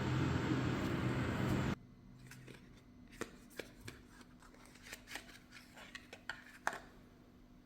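Steady loud noise that cuts off abruptly under two seconds in, followed by a run of light, scattered clicks and taps.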